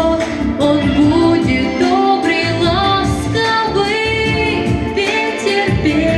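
Female solo vocalist singing live over instrumental backing music, holding a note with vibrato about four seconds in.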